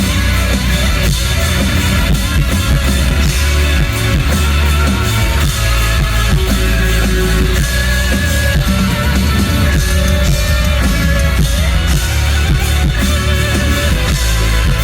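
Rock band playing loudly: distorted electric guitars, bass and drum kit, with no break.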